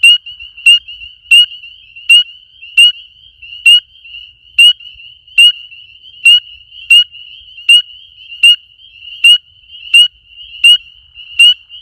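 Male spring peeper giving its mating call: a loud, high, slightly rising peep repeated about every three-quarters of a second, over a steady chorus of other peepers.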